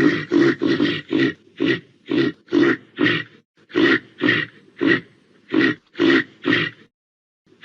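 Reindeer grunting: a run of about fifteen short, rough grunts, two to three a second at first and spacing out a little, stopping about seven seconds in.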